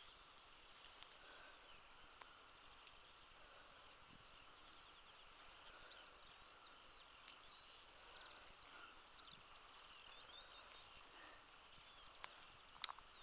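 Near silence: faint outdoor ambience with small chirps scattered throughout and a few light clicks, most of them near the end.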